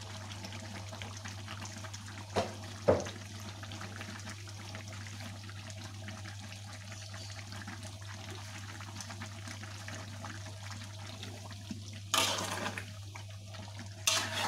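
Coconut-milk gravy simmering in a large aluminium wok, a steady bubbling, with two short knocks about two and a half seconds in. Near the end a spatula stirs and scrapes through the wok twice.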